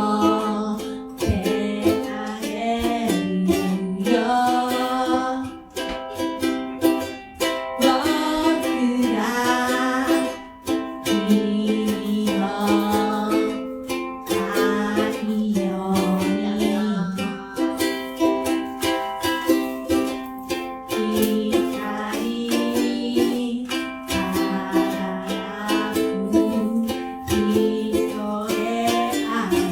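Ukulele strummed in steady chords, with a voice singing an original song over it.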